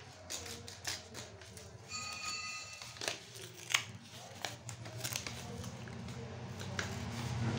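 Paper crinkling and tearing as a small taped paper packet is pulled open by hand, in scattered short rustles. A steady high tone sounds for about a second, about two seconds in.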